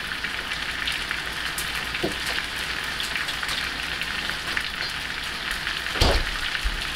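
Ribeye steak sizzling in a hot pan, a steady crackling hiss. A single dull knock about six seconds in.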